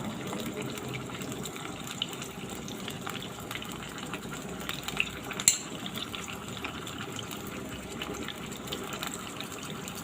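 Small pot of water, olive oil, garlic and dried figs heating on a gas stove, sizzling with a steady hiss and fine crackling, with a couple of sharper ticks about five seconds in.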